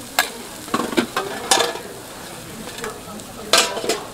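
Filling and cheese sizzling on a hot cast-iron bungeoppang (fish-shaped pastry) mold, broken by sharp metal clacks and scrapes of tools on the iron, a handful in the first two seconds and the loudest cluster near the end.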